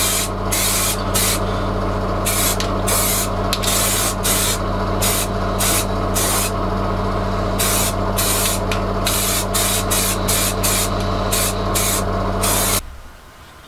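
Aerosol spray paint can hissing in many short, irregular bursts as black paint goes onto a plywood dust hood, over a steady low electrical hum; both cut off about a second before the end.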